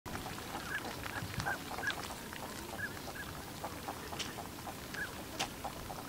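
Northern pintails calling: a string of short, high whistled notes, with small clicks and splashes of dabbling at the water's surface.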